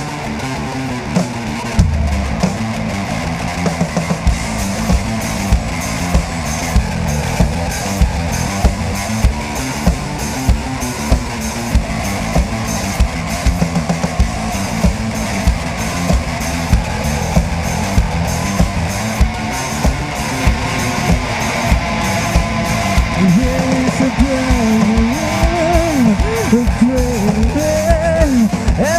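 Rock band playing: a drum kit keeps a steady, even beat under distorted electric guitar and bass.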